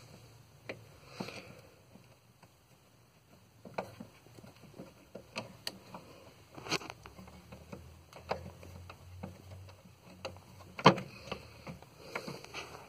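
Irregular light knocks, taps and scuffs of a rubber pedal pad being bent and tucked by hand onto a Jeep's metal clutch pedal, with two louder knocks, one near the middle and one toward the end.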